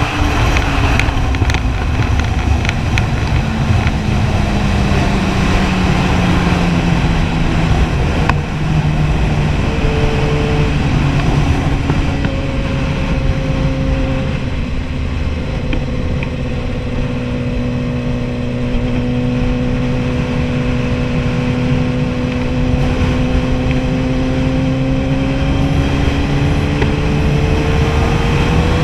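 Kawasaki Ninja ZX-10R inline-four engine running under way, with wind rushing over the microphone. The engine note falls over the first several seconds as the bike slows, holds steady for a long stretch, then slowly climbs near the end.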